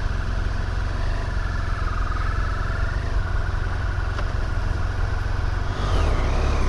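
BMW F800GT's parallel-twin engine running at low revs as the motorcycle rolls slowly through traffic, getting a little louder about six seconds in as it picks up.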